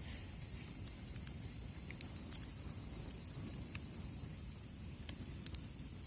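Wood fire crackling, with a few sharp pops scattered through, over a steady high chorus of insects such as crickets.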